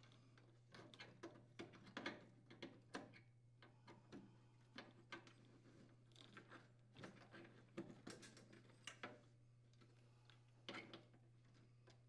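Faint, irregular clicks and taps of plastic water tubing and a plastic water inlet valve being handled, as the water lines are pushed into the valve's ports.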